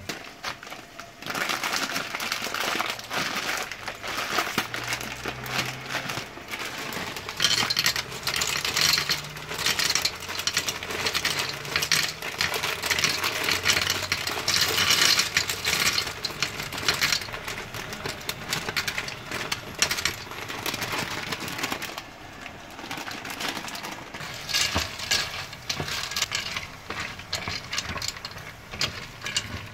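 Dry penne pasta poured from its plastic packet into a pot, a dense clatter of small crackles and clicks with the packet crinkling, starting about a second in. It dies down about three quarters of the way through, leaving a wooden spoon stirring the pasta in the pot.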